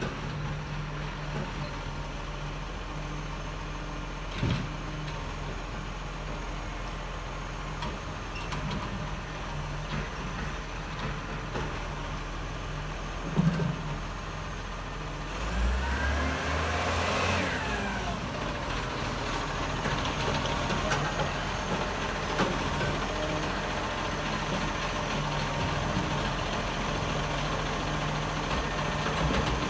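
Dennis side-loader garbage truck's diesel engine running steadily while its hydraulic lifting arm picks up and tips wheelie bins, with a couple of knocks. About halfway through the engine revs up with a rising whine.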